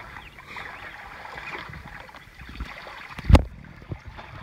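River water sloshing and splashing around a wader as he hauls in a cast net, water pouring off the net, with one loud thump about three seconds in.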